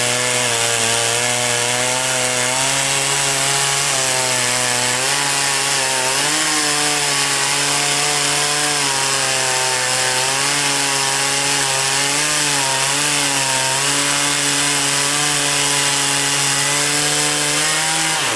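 Sawmill running with its engine held at a steady speed under load, the pitch dipping slightly now and then, over the hiss of the saw cutting through wood.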